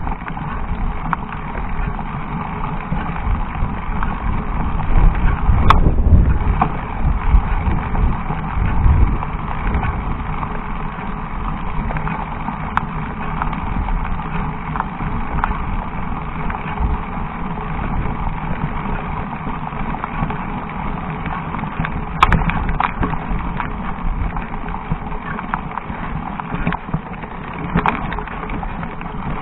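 Mountain bike climbing a rocky dirt trail: tyres crunching over loose stones and the bike rattling, with heavier knocks about five to nine seconds in and a few sharp clicks.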